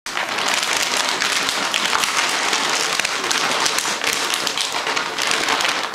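An empty plastic dog food bag crinkling and rustling continuously as a dog rummages inside it with its head, pushing the bag across the floor. The rustling is a dense stream of sharp little crackles.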